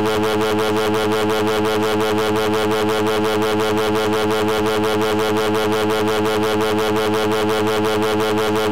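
A cartoon character's synthetic text-to-speech voice held in one long, loud, buzzing cry at an unchanging pitch, with a fast, even flutter.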